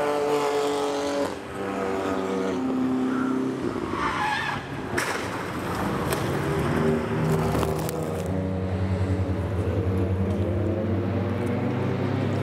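Racing car engines running hard, their pitch rising and falling with the revs, with a brief tyre squeal about four seconds in.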